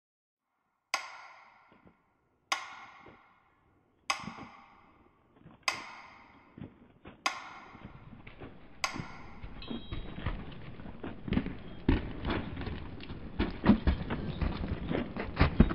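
Six ringing strikes, evenly spaced about a second and a half apart, each dying away before the next. They give way after about nine seconds to a steady clattering noise full of small irregular knocks.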